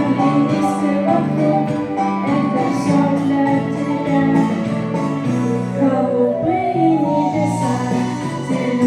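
A song: a singing voice over instrumental backing, with sustained notes changing pitch in steps.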